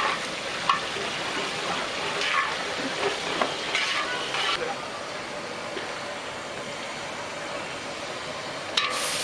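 Onions, green chillies and ginger-garlic paste sizzling in hot groundnut oil as they fry toward golden. In the first half a spoon is stirred through them in scraping strokes. After that the sizzle runs steadily, and a sharp knock comes near the end.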